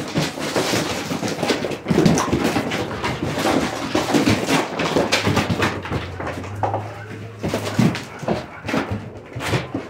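A young German Shepherd chasing and lunging at a flirt-pole lure: rapid scuffling and scraping of paws and the lure on concrete and gravel.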